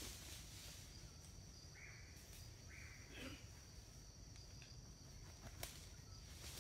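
Faint forest ambience: a steady high insect hum, two short high-pitched calls about two and three seconds in, and light rustles in dry leaf litter.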